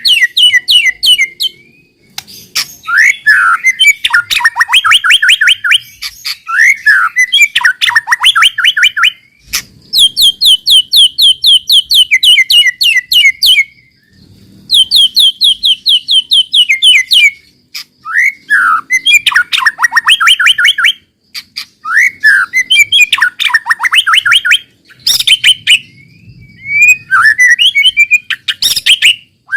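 White-rumped shama (murai batu) singing loudly in long runs of rapid, repeated sharp notes. The song comes in phrases of two to four seconds with brief pauses between them. This is the fast, fired-up 'nembak' song played as a lure to get other shamas singing.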